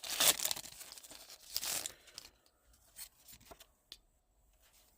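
Foil Pokémon booster pack wrapper being torn open and crinkled, loudest in the first second and ending about two seconds in, followed by a few faint clicks.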